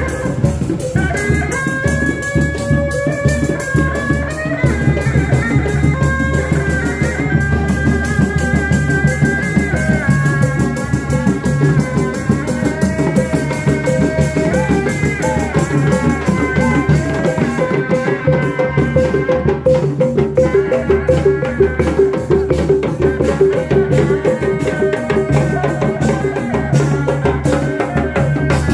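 Reak procession music: drums beating a dense, steady rhythm, with a high, wavering melody line playing over it.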